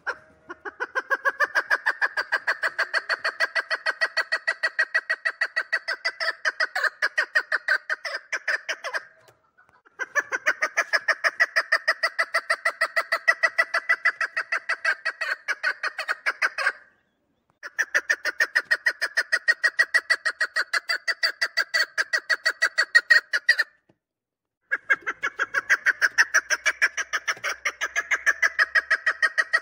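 Chukar partridge calling: long series of rapid clucking notes, about five a second, in four runs of several seconds each with brief pauses between.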